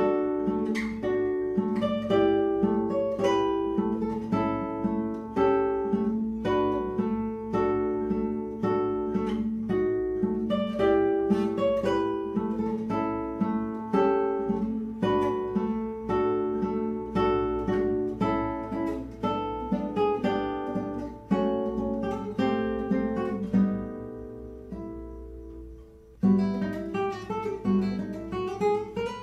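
Background music: an acoustic guitar playing a steady run of plucked notes, fading briefly near the end before a new phrase begins.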